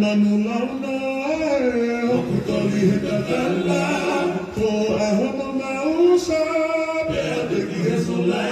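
Song for a Tongan tauʻolunga dance, sung by a group of voices in slow, held phrases over a steady low tone.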